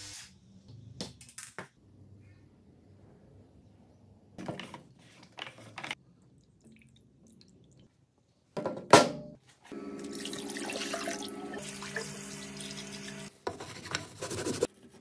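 Handling sounds of water and metal parts: scattered small clicks and knocks, a sharp knock about nine seconds in, then a few seconds of steady water noise. Near the end, a brush scrubbing the wet steel plates of an electrolysis cell.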